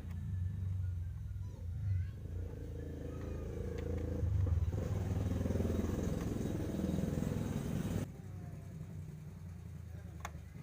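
A motor-vehicle engine running, louder from about two seconds in and cutting off abruptly about eight seconds in, over a steady low hum.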